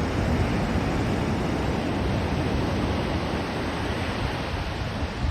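Steady rushing noise of surf on a beach, with wind buffeting the microphone.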